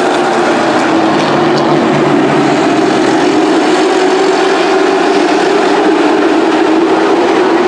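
Super truck race engines running hard as the trucks race around the oval: a loud, steady engine drone.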